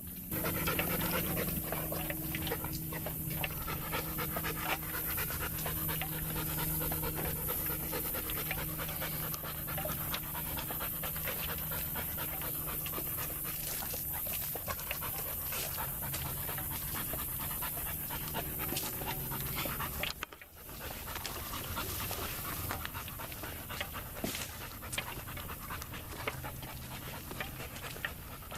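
Dog panting steadily and hard, close by. It breaks off briefly about twenty seconds in, then carries on.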